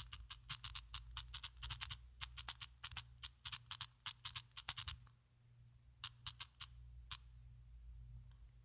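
Keyboard typing: rapid key clicks, about six a second for the first five seconds, then after a short pause a few more about six to seven seconds in, over a faint low hum.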